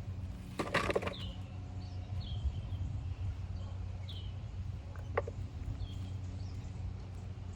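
Hands scraping and rustling through potting soil in a brief burst about a second in, with a few short bird chirps and a steady low hum behind.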